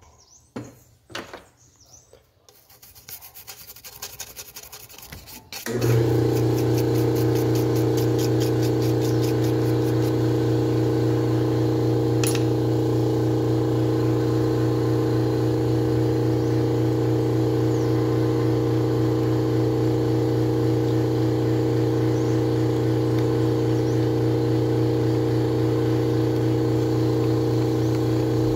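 Light handling and rubbing noises, then about six seconds in a loud, steady motor hum starts abruptly and runs on at an even pitch and level.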